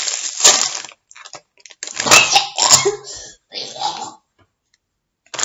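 A Doritos chip bag crinkling and crackling as it is pulled open and handled, in irregular bursts with short pauses between them.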